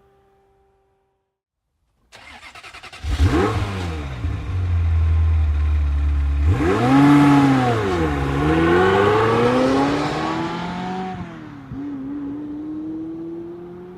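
A Ferrari engine is cranked by its starter and catches about three seconds in. It is blipped, then revved hard up and down, and its pitch climbs steadily through the rest of the stretch.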